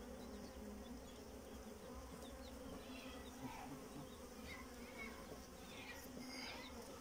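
Honeybee colony in an open hive humming: a faint, steady low buzz of many bees.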